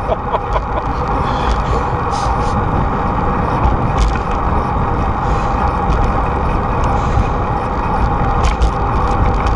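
Steady rushing noise of a moving bicycle: wind on the microphone and the drone of freeway traffic on the overpasses above, with a few light clicks.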